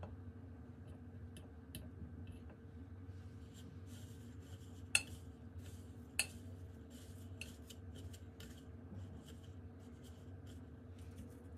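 A metal fork clinking against a ceramic dish and scraping and rustling through breadcrumbs, quiet, with two sharper clinks about five and six seconds in.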